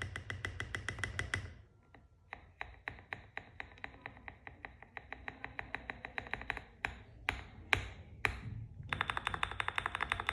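Typing on a KBD67 Lite R2 mechanical keyboard with Holy Panda tactile switches: rapid, even keystrokes. They stop briefly after a second and a half, a few separate louder strokes come near the end, and fast typing starts again just before it ends.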